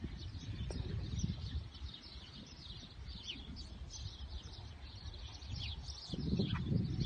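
Many small birds chirping in quick, short, falling calls, over a low rumble that swells near the end.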